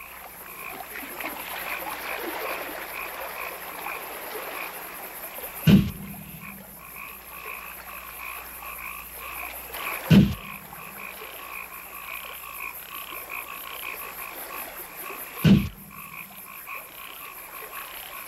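A night chorus of frogs calling steadily in rapid pulsing trills, broken three times by a sharp bang of flash powder going off: near 6 s, near 10 s and near 15 s in.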